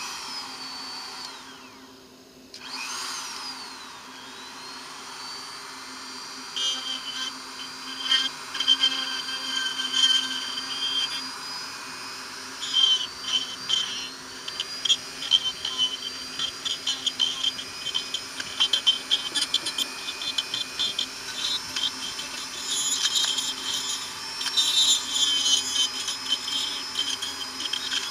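Handheld corded rotary tool running at high speed with a steady high whine; it stops briefly about two seconds in and starts again. From about six seconds in, its bit grinds into rotten door-frame wood with an irregular rasping that comes and goes as it bites.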